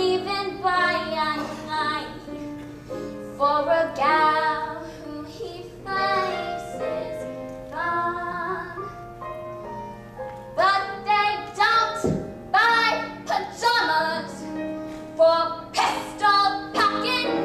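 A female performer singing a solo show tune on stage, with steady accompaniment underneath.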